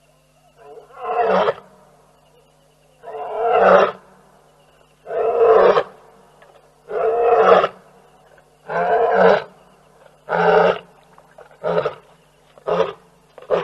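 Lion roaring: a bout of long, deep roars about every two seconds that shorten into quicker grunts toward the end.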